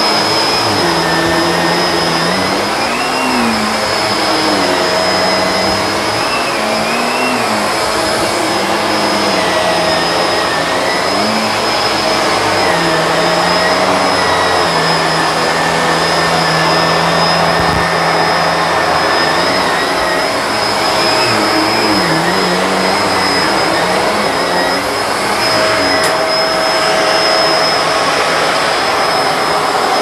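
Bissell PowerLifter Swivel Pet upright vacuum cleaner running steadily as it is worked over a mattress. Its motor gives a constant high whine over a loud rush of air, with a lower tone that rises and falls every few seconds.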